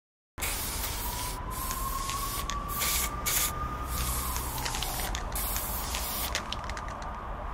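Aerosol spray-paint can hissing in repeated short and long bursts, with small clicks between them. Under it a thin tone rises slowly for about four seconds, then slides back down.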